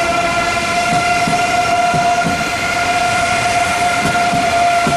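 Eurostar high-speed electric train running by at steady speed, its traction motors giving a steady high whine with several overtones. Irregular low thuds from the running gear sound underneath.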